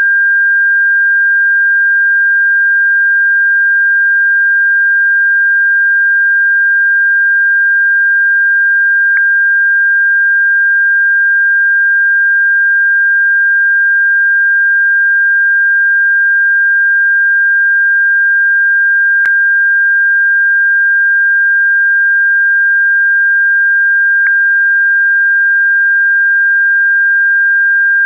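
A steady, high-pitched pure electronic tone held unbroken at a constant loud level, with three faint brief clicks.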